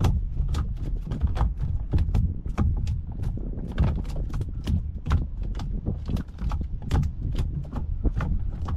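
Rhythmic knocking, about two to three knocks a second, over a steady low rumble.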